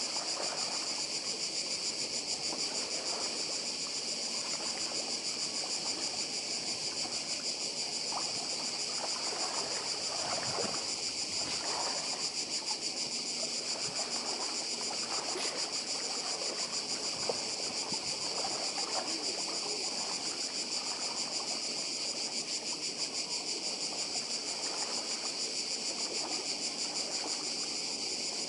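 Cicadas singing in chorus, a steady high-pitched rapid buzzing, over small sea waves lapping and splashing among the pebbles and rocks of the shore.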